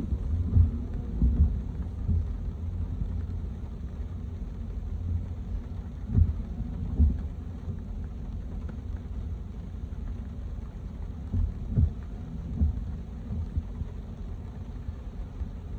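Low, steady rumble of a car driving on wet city streets, with a few dull thumps, two near the middle and two more a few seconds later.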